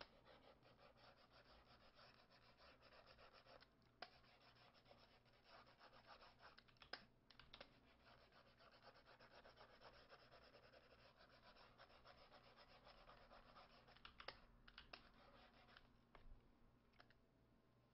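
Faint scratching of a stylus nib on a graphics tablet in rapid short strokes while shading, with a few sharper clicks about 4, 7 and 14 seconds in.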